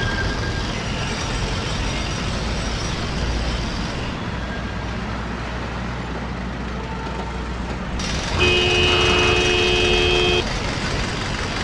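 Road traffic noise, a steady rumble of vehicles, with a vehicle horn sounding once for about two seconds near the end.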